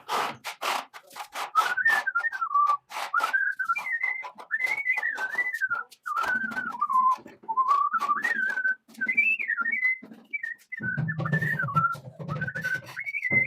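A person whistling a wavering tune. A quick run of sharp knocks or taps sounds in the first few seconds.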